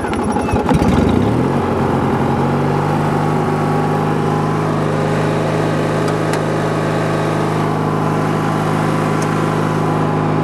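A 15 hp riding lawn mower engine catches after cranking and rises in pitch for about two seconds. It then runs with a steady, even note.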